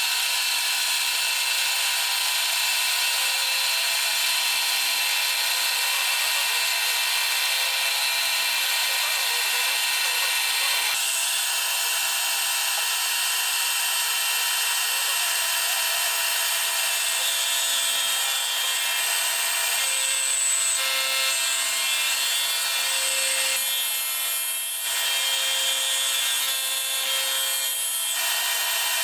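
Milltronics Partner 4 CNC milling machine running a cut: a steady, loud spindle and cutting noise with many high steady tones. The sound shifts about eleven seconds in, and a lower hum comes and goes in the second half.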